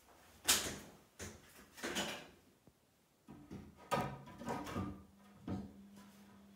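Wooden shelf board knocking and scraping against the wall as it is lifted into place and set down as a shelf. A string of dull knocks, the loudest about half a second in, with a quicker cluster of knocks between three and six seconds as the board is settled and nudged.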